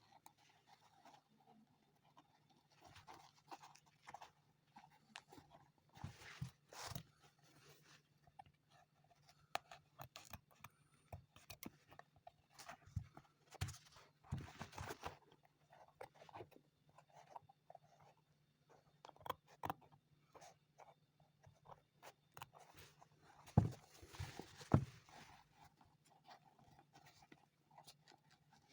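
Hand work on an old leather shoe: scattered scrapes, clicks and rustles of tools and leather being handled, with two louder knocks near the end, over a faint steady low hum.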